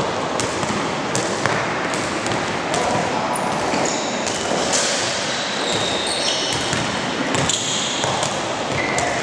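Indoor basketball game: the ball bouncing, shoes squeaking briefly on the court and voices calling out, all echoing in a large gym over a steady din.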